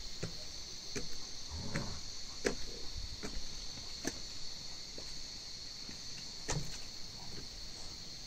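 Footsteps on wooden stairs, a series of separate knocks and thuds, over a steady high-pitched chorus of crickets.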